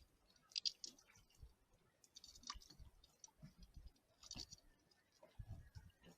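Faint metal clicks and clinks of hand tools and stainless bolts being worked while fastening a mount, in short bursts about every two seconds, with soft low bumps between them.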